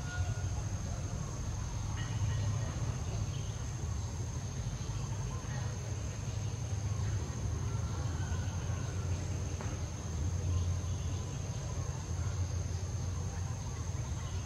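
Insects droning in one steady high-pitched tone over a constant low rumble, with a few faint short chirps now and then.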